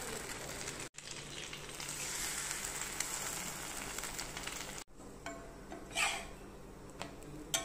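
Egg-dipped bread slices sizzling steadily as they fry in oil on a flat iron griddle (tawa). About five seconds in the sizzle drops lower, and a second later there is one short, louder scrape.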